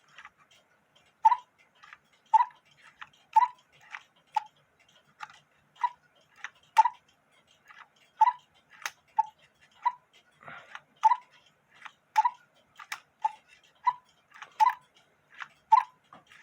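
Cuckoo clock movement ticking steadily in its wooden case, about two ticks a second, alternating louder and softer.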